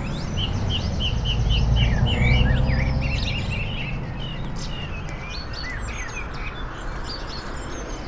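Bus engine running under a string of short, high chirping squeaks, about four or five a second for the first couple of seconds and then scattered: the weird squeaky noise of the bus. The engine rumble swells about two seconds in and then eases.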